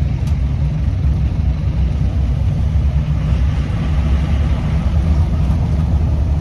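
Mahindra Commander jeep being driven, with a steady low rumble of engine and road noise.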